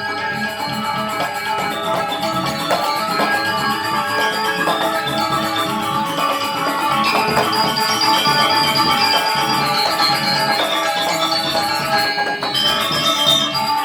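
Balinese gong kebyar gamelan playing: dense, quick bronze metallophone and gong-chime notes over a steady clatter of small cymbals, with no pause.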